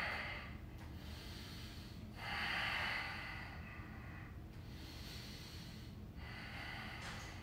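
A man breathing heavily under the effort of holding a plank: a breath at the start, a longer, louder one about two seconds in, and a fainter one near the end.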